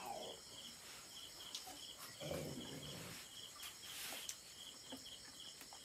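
Crickets chirping faintly and steadily, a high short chirp repeating a few times a second, under soft clicks and rustles of people eating from metal plates.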